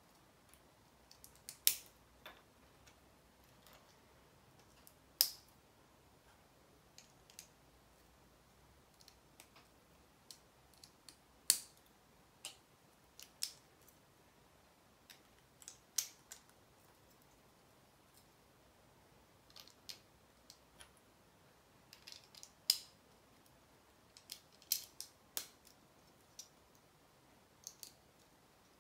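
Plastic Lego pieces being handled and pressed together: irregular sharp clicks and taps a few seconds apart, with quieter ones in between.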